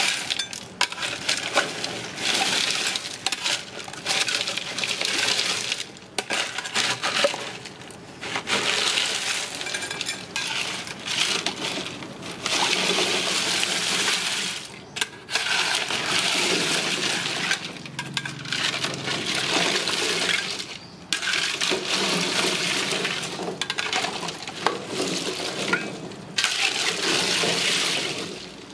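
Ice cubes and duck eggs clinking and rattling against each other and the side of a metal pot, with water sloshing, as they are stirred in an ice-water bath with a metal spoon. The clatter comes in spells with short pauses.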